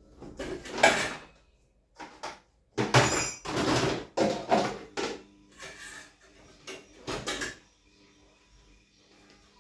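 Kitchenware being handled: a run of irregular scrapes and clatters of pots, dishes and drawers, dying down after about seven seconds.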